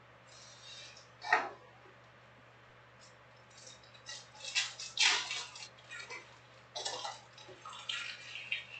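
Foil-wrapped trading card packs being handled and restacked: wrappers crinkling, with scattered sharp crackles and taps as packs are set down. The loudest come about a second in and about five seconds in.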